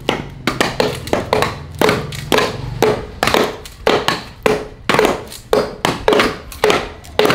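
Knives and axes chopping into wood, several people hacking at once: rapid, repeated hard strikes, about three a second, each with a short ring.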